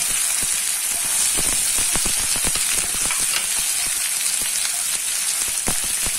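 Diced onion and curry leaves sizzling in hot oil in a kadai: a steady hiss dotted with many small crackling pops.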